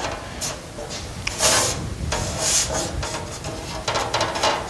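An engine-turned aluminum sheet panel rubbing and scraping against the metal body as it is pushed and shifted into place, in several irregular scrapes.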